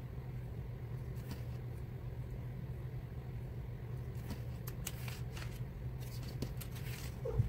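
Mechanical pencil scratching on paper in a run of short sketching strokes, mostly in the second half, over a steady low hum.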